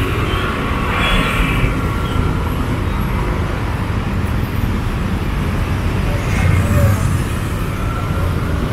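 Steady street traffic: engines and tyres of passing vehicles, with one vehicle growing louder as it passes about six and a half seconds in.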